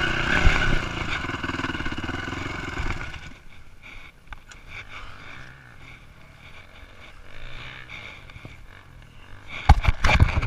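Honda CRF450 dirt bike's 450 cc four-stroke single running under way, its note dropping away sharply about three seconds in as the bike comes to a stop, leaving a low, quiet rumble. Loud knocks and rubbing near the end.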